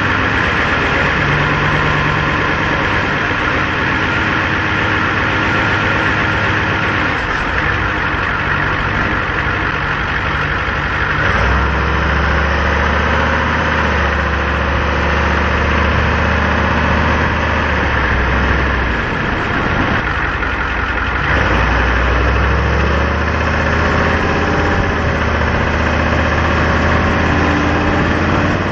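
Ford F-350's straight-piped, turbocharged 7.3 IDI V8 diesel running as the truck drives slowly, heard from outside along the body. The low engine note steps up about a third of the way in, drops away for a moment about two thirds in, then comes back.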